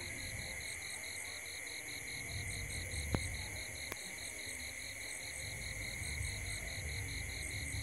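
Night insect chorus: a steady high trill under a fast pulsing chirp of about five a second. A sharp click comes about three seconds in, the loudest moment, with a fainter one a second later, over a low rumble that grows in the second half.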